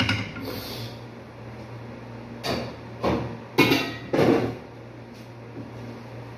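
Steel cooking pot clanking and knocking at a kitchen sink as it is handled, a knock at the start and a few more in quick succession about halfway through, over a steady low hum.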